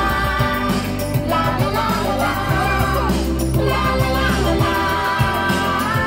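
A show song with singing over a steady beat.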